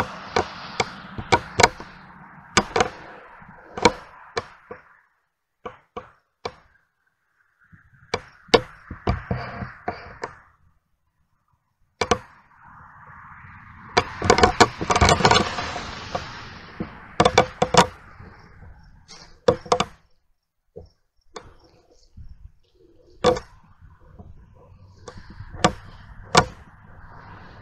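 Footsteps crunching on a rough path, a sharp knock at many of the steps, coming in uneven runs with two short pauses.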